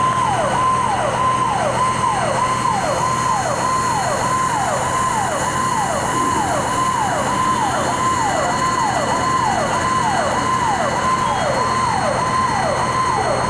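Fire engine siren sounding without a break in a fast repeating cycle: a high tone that drops sharply each time, about one and a half cycles a second, over steady background noise.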